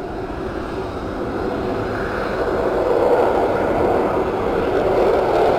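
Fighter jet engines on a takeoff roll: a steady jet noise that grows louder from about two seconds in.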